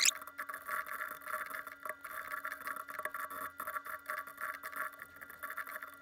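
Computer keyboard typing played back fast-forwarded: a dense run of rapid clicks over several steady high tones. It opens with a brief rising sweep.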